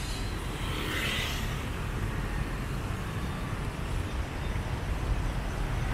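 City street traffic: motor scooters passing close by, a steady rumble of engines and tyres, with one passing a little louder about a second in.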